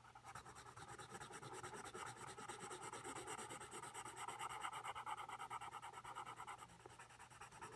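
6B soft graphite pencil shading on paper in quick back-and-forth strokes: a faint, rapid scratching.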